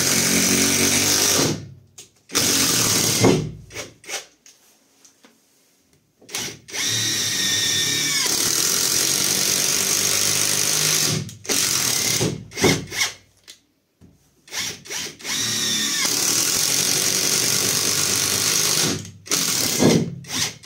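Catpower 4226 cordless impact wrench driving a long Bulldex lag screw into a dry pine stump. It runs in several loud stretches of a few seconds each, broken by short bursts and a brief pause, and the motor's pitch rises as some stretches begin.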